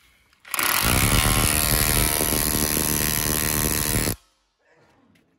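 Impact drill running in hammer mode, used as a makeshift hammer: a loud, fast rattling hammer action that starts abruptly and stops abruptly after about three and a half seconds.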